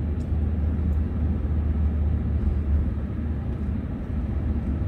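A moving car's steady low engine and road rumble, heard from inside the cabin.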